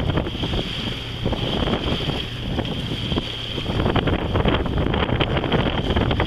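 Wind buffeting the microphone aboard a sailing yacht under way, a steady low rumble with irregular gusts, over the wash of water along the hull.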